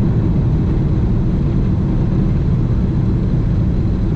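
Cabin noise of a Boeing 777-300ER climbing out just after takeoff, heard from a window seat by the wing: a loud, steady low rumble of its GE90-115B engines at climb thrust mixed with airflow, with a faint steady whine above it.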